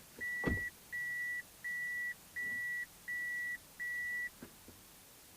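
Six evenly spaced electronic beeps at one steady high pitch, each about half a second long, with a dull thump near the first beep.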